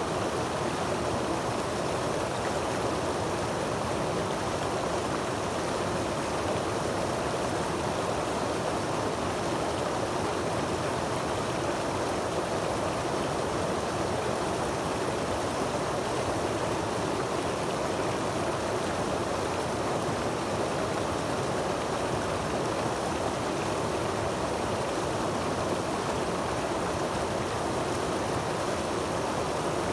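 Creek water tumbling over a small rocky cascade into a shallow pool: a steady rushing splash that does not change.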